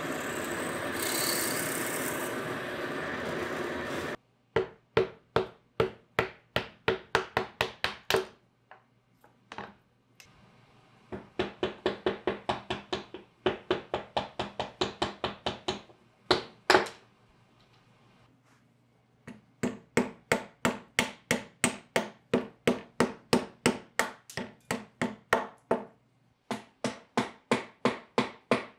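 Drill press running, cutting off about four seconds in. Then quick runs of hammer blows, about four a second with short pauses between runs and one loud single blow midway, as small wooden pegs are split and driven through a steel dowel plate.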